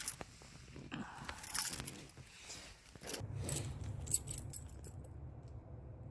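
Light metallic jingling and clinks in several short bursts, with handling noise. A low steady hum sets in about three seconds in.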